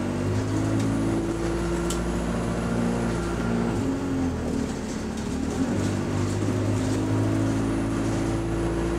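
Bus diesel engine running while the bus is under way, heard from inside the passenger cabin over road noise. The engine note shifts and dips about four to five seconds in, then picks up and steadies again.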